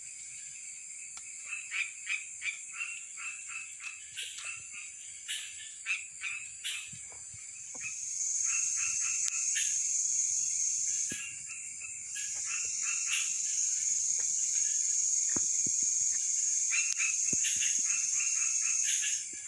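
Night swamp chorus of frogs calling in rapid strings of short croaks, over a steady high-pitched insect drone. The drone swells louder about eight seconds in, dips briefly, then comes back.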